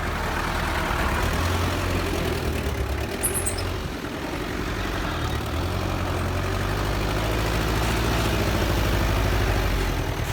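Heavy-equipment diesel engine running steadily with a deep rumble. It dips briefly about four seconds in, then builds a little.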